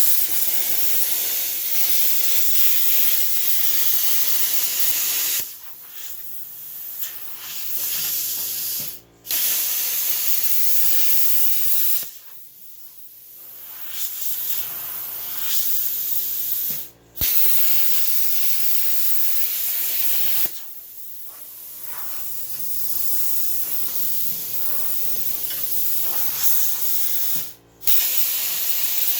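Plasma cutter cutting steel plate: a loud, steady hiss of the arc and air that cuts out and restarts three times, with a quieter hiss between cuts.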